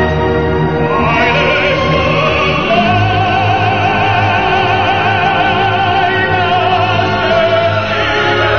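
Music: operatic-style singing with strong vibrato over instrumental accompaniment, the voice settling into one long held note from about three seconds in until near the end.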